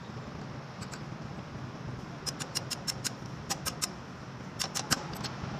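Quick clusters of light, sharp metallic clicks from a small pick tool working at the transmission's front oil-pump input-shaft seal, over a steady low hum.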